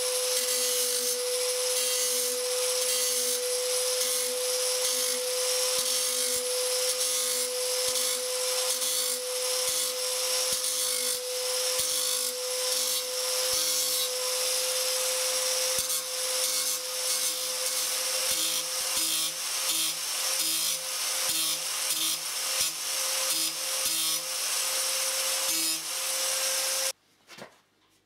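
Electric angle grinder running at a steady whine while its grinding disc grinds the cutting edge of a steel mower blade, with a continuous scraping hiss of abrasive on metal as the edge is sharpened. The sound cuts off abruptly about a second before the end.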